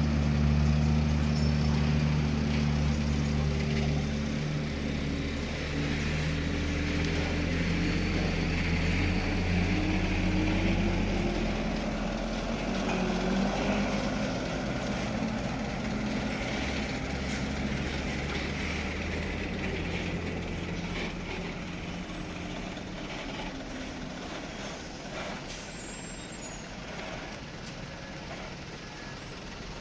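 Heavy truck engine running, its pitch rising for a few seconds as it pulls away, then fading gradually over the second half.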